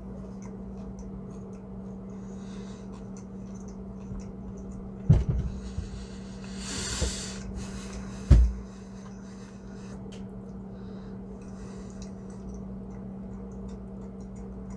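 A man chewing a bite of burger and breathing, with faint small mouth ticks and a loud breath about seven seconds in, over a steady low hum. Two dull thumps, about five and eight seconds in, are the loudest sounds.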